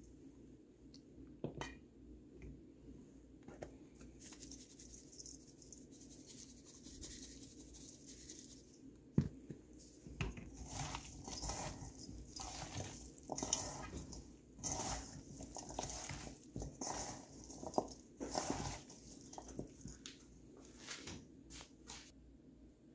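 Hands squishing and tossing seasoned raw chicken pieces and vegetables in a stainless steel bowl: wet squelches and pieces knocking against the metal in irregular handfuls, busiest in the middle of the stretch. A couple of sharp knocks come earlier.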